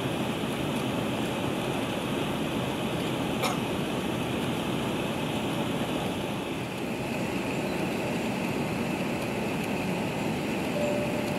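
Steady cabin noise inside an Airbus A380 taxiing: the engines at low taxi thrust blended with the cabin air-conditioning hiss. A single sharp click about three and a half seconds in.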